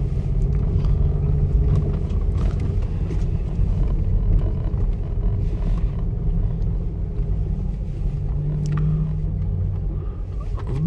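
A car driving along a dirt road, heard from inside the cabin: a steady low rumble of engine and tyres, with a few faint knocks.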